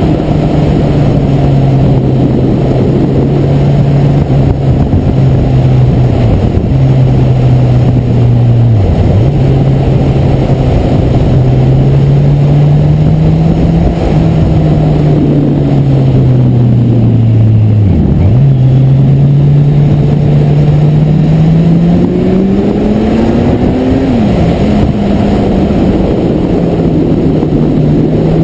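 Kawasaki Z1000SX motorcycle's inline-four engine running under way, its revs rising and falling with the throttle through the bends, under heavy wind and road rush on the bike-mounted camera. The engine note dips sharply about nine and eighteen seconds in, then climbs steadily until it drops back abruptly about twenty-four seconds in.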